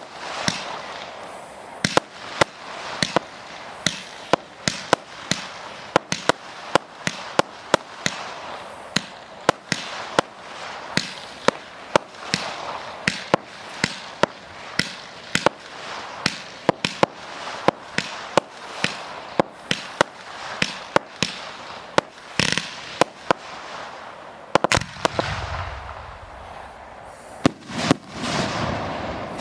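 Fireworks display: a rapid, irregular barrage of sharp bangs, roughly two a second, over continuous crackling. Near the end a deeper rumbling sets in as larger shells go off.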